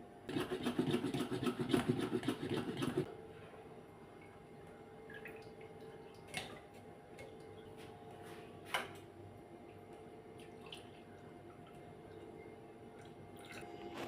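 Water running from a kitchen tap for about three seconds, then shut off. A faint steady hum follows, with two light knocks.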